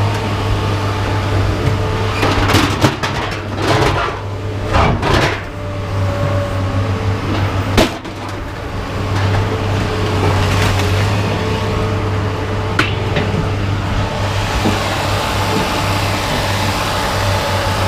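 Scrap metal being unloaded by hand: irregular metal clanks and clatters, with a sharp bang about eight seconds in, over a steady low engine hum.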